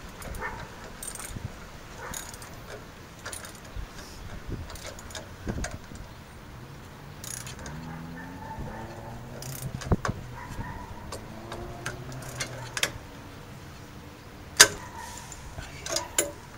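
Scattered metallic clicks and clinks of LED light-mounting hardware being handled and fitted to a truck's light brace, with one sharp clank about three-quarters of the way through. A faint low hum wavers through the middle.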